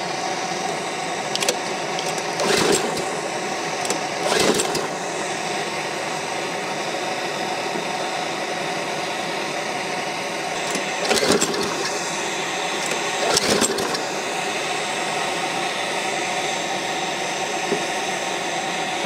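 Recoil starter of a lawnmower engine fed with vaporized vegetable oil being yanked four times, two pulls early and two more about eleven seconds in, each a short whirring rush of cranking, without the engine catching. A steady hiss runs underneath.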